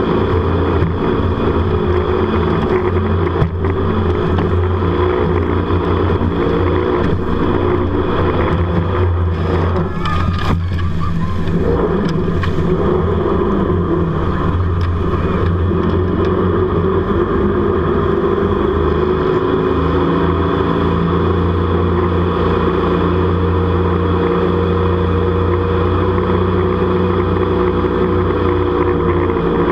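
Jet boat's engine running hard at speed, a steady drone with water rushing and spraying around the hull. About ten seconds in, the engine note drops briefly and then climbs back.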